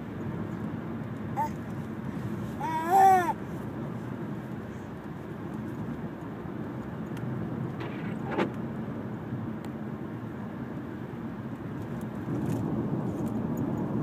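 Steady road and engine noise inside a moving car's cabin. About three seconds in, a baby lets out one short, loud, high-pitched vocal sound, with a smaller one just before it.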